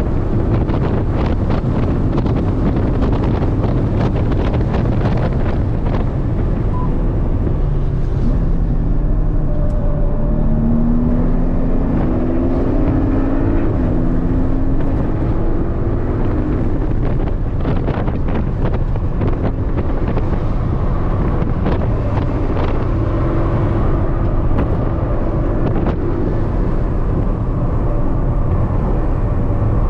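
Porsche 718 Cayman's 2.0-litre turbocharged flat-four driven hard on track, heard from inside the cabin over heavy road and wind rumble. Partway through, the engine note climbs in steps as the PDK gearbox shifts up under acceleration.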